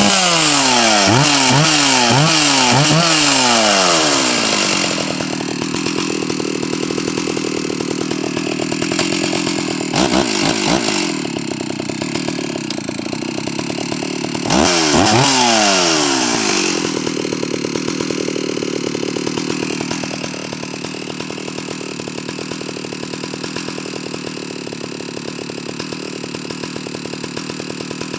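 Stihl 048 AV two-stroke chainsaw revved in several quick blips, then dropping to idle. It gets a short flurry of blips about ten seconds in and one more rev about five seconds later, then idles steadily to the end.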